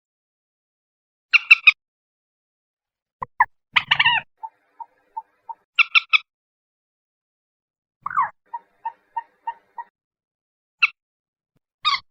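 Common moorhen calling: short groups of sharp clucking notes and runs of quick, evenly spaced short notes, about three a second, separated by silent gaps.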